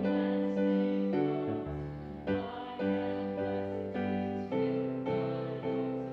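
Instrumental church music on a keyboard instrument: slow, sustained chords that change every second or so over a bass line.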